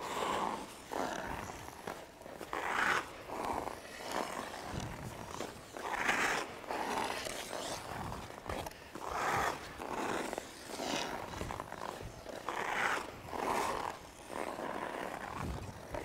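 Hockey skate blades carving and scraping the ice in skating strides, the swishes coming in pairs about every three seconds.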